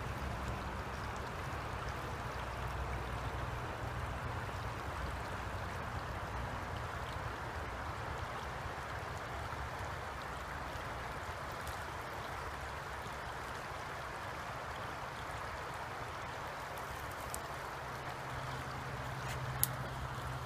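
Creek water flowing steadily over and around rocks, an even rushing noise, with one sharp click near the end.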